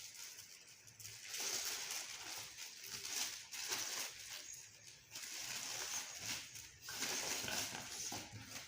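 Stiff plastic packaging crinkling and rustling as it is handled and pulled at, in several separate stretches of rustle.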